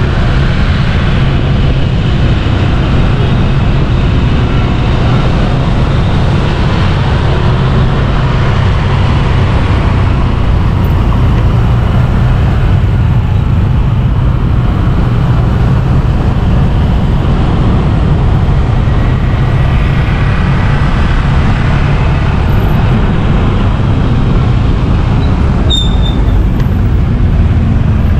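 Continuous street-traffic noise heard while moving through city traffic: a steady low rumble of engines and tyres, with a brief high whistle-like tone near the end.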